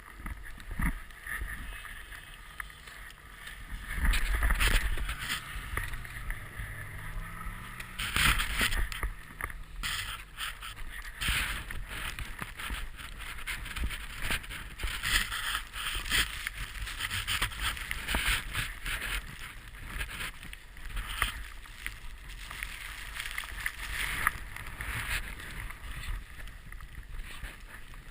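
Snowboard sliding through deep fresh powder: a steady hiss and scrape of the board on snow, with wind buffeting the camera microphone and frequent knocks and bumps. The loudest surges come about four and eight seconds in.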